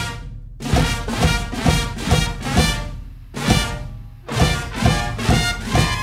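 Brass and drum marching band playing a loud rhythmic figure of punched, accented hits about every half second, with a brief break about three seconds in.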